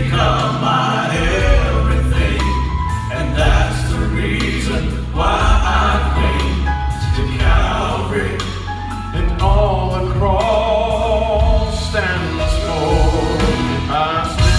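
A gospel vocal quartet singing a hymn in harmony, the voices held with vibrato, over a steady low accompaniment.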